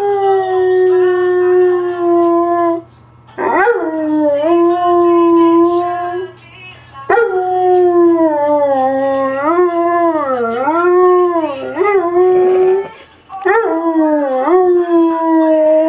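A black Lab–pointer mix dog howling along to music: four long howls, each sliding down at the start and then held. The third is the longest and wavers up and down.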